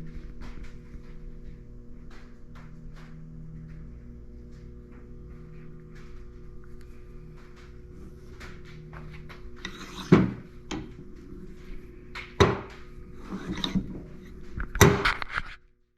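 Small clicks, then three loud metal knocks and clunks with scuffing between them, from handling a steel bench vise, over a faint steady hum. The sound cuts off abruptly just before the end.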